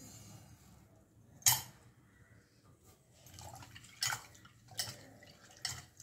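Herb leaves being rinsed by hand in water in a steel pot: water sloshing, with a few sharp splashes and knocks against the pot, the loudest about a second and a half in.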